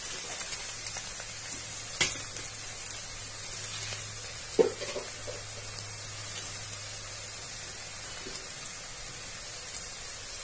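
Sliced onion and green chillies sizzling steadily in hot oil as the onion browns, with two brief knocks about two and four and a half seconds in.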